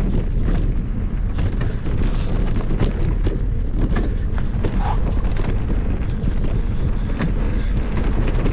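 Wind buffeting a small action-camera microphone over the rumble of mountain-bike tyres on a dirt trail, with irregular clicks and rattles from a Merida Big Trail 500 hardtail's chain and frame as it rolls over bumps.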